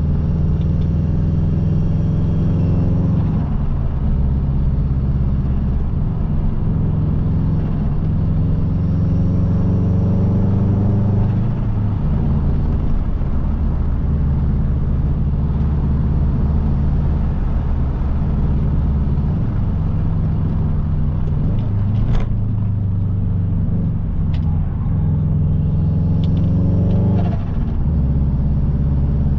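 Subaru Impreza WRX's turbocharged EJ20 boxer engine running hard on a hill climb, its note climbing in pitch several times and dropping back each time. A single sharp knock comes about two-thirds of the way through.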